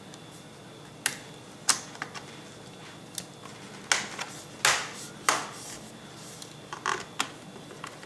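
Sharp plastic clicks and knocks, about ten scattered irregularly, as the RAM compartment cover on the underside of a Toshiba Satellite L40-A laptop is pressed shut and handled.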